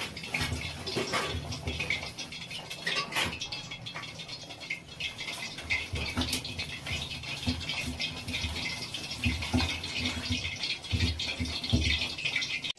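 A hand squishing and kneading wet bhajiya batter of crumbled roti and curd in a steel bowl, with irregular squelches and fingers scraping the bowl.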